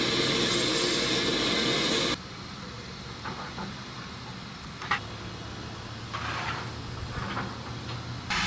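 Loud, steady hiss of steam from a standing GWR Manor class steam locomotive for about two seconds, cutting off suddenly. Then a much quieter stretch of faint railway yard sounds, with a single sharp clank about five seconds in.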